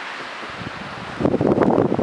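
Blizzard wind hissing steadily with blowing snow. A little over a second in, a strong gust hits the microphone and the sound jumps to a much louder, irregular buffeting rumble.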